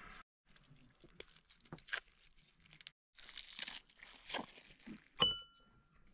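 Scattered crisp crunching and tearing noises, a few at a time. About five seconds in there is one sharp clink that rings on briefly with a clear tone.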